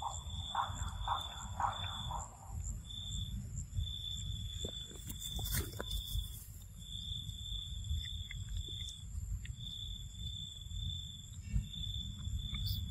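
Outdoor insect chirping: a high, steady-pitched buzz that switches on and off in repeated chirps, over a faint higher whine and a low rumble. A quick run of short calls sounds in the first two seconds, and there is a brief rustle about five seconds in.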